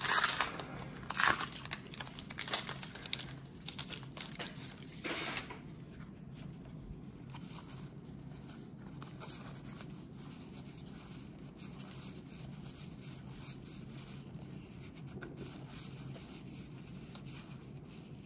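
Wax-paper wrapper of a 1991 Donruss baseball card pack being torn open and crinkled, in a series of loud crackly bursts over about the first five seconds. After that, only faint soft rustles as the cards are handled, over a low steady hum.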